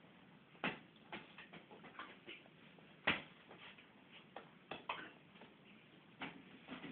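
Irregular light clicks and knocks of an eating utensil against a dish, about seven in all, the loudest about three seconds in.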